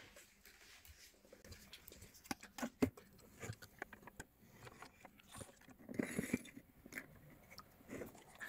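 Faint scattered clicks and taps of small objects being handled on a workbench, with a soft rustle about six seconds in.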